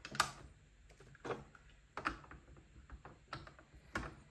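Ink cartridges being pushed into the print-head carriage of a Canon Pro 9500 Mark II printer: a series of short plastic clicks and knocks, about one a second, as each cartridge is seated.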